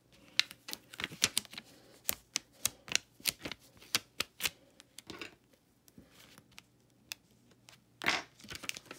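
Handling noise from hands at work: a quick, irregular run of light clicks and taps over the first five seconds, thinning out, then a short rustle about eight seconds in.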